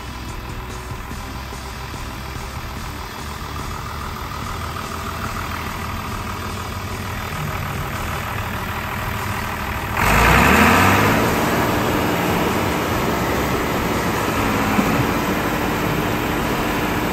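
John Deere tractor's diesel engine running steadily. About ten seconds in it revs up sharply and holds at a higher speed, straining to drive the mired tractor out of the mud.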